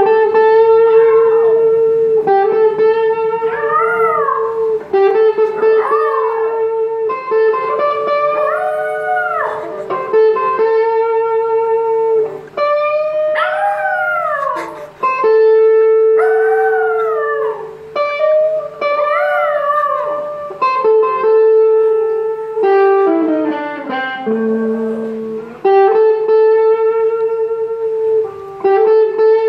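A small dog howling along to a guitar: a series of drawn-out howls that rise and fall in pitch, over held lead-guitar notes.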